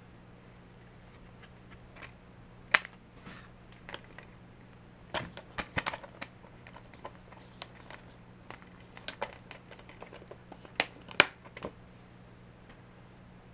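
Plastic Blu-ray cases and packaging being handled: scattered sharp clicks and taps, the loudest about three seconds in and near eleven seconds, with a quick cluster in between, over a faint steady hum.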